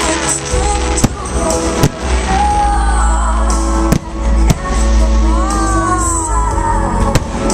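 Loud music with singing, a heavy bass underneath, carrying through the stadium, while fireworks go off with several sharp bangs.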